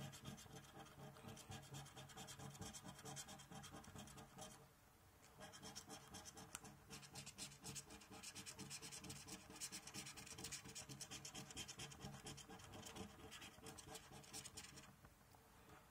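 Faint, rapid repeated scraping strokes as the scratch-off coating is rubbed from a Triple Lucky 7s lottery scratchcard, with a brief pause about five seconds in.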